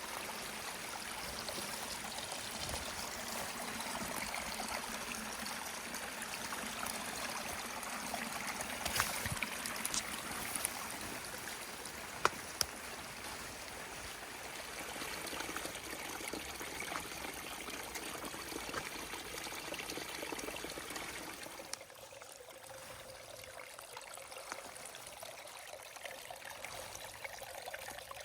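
Cascading forest stream water running steadily, with a few sharp clicks near the middle. The lower, fuller part of the sound drops away abruptly about three quarters of the way through.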